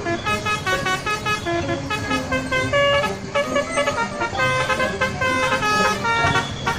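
Bus 'telolet' horn, a multi-trumpet air horn, playing a quick tune of notes that change every fraction of a second, several tones sounding together, over the rumble of road traffic.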